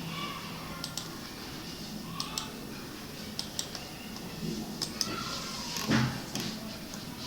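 Scattered computer mouse clicks over faint room noise, the loudest about six seconds in.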